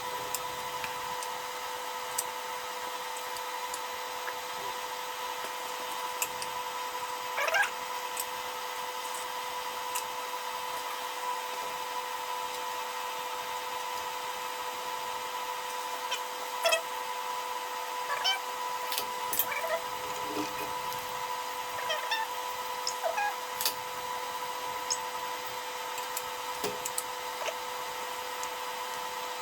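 Steady machine hum holding two constant tones, with a few short clicks and brief squeaky chirps scattered through it.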